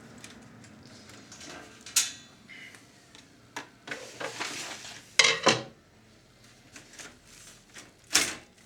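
Hands taking apart a Sharp VC-573E video cassette recorder: sharp clanks and knocks of its metal casing and tools, three loudest about two, five and eight seconds in, with scraping and small clicks between.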